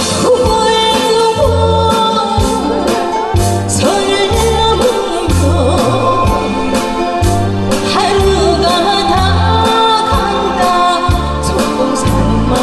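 A Korean trot song sung with vibrato on the held notes, over an accompaniment with a steady bass beat of about one pulse a second.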